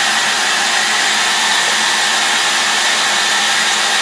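Hair dryer running on high, its nozzle pushed down a hole in the lid of a plastic storage container, blowing a steady rush of air.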